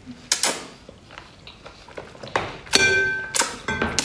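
Wet slurping and sucking as long chili-oil-coated octopus tentacles are drawn into the mouth. A brief ringing tone sounds about three quarters of the way through.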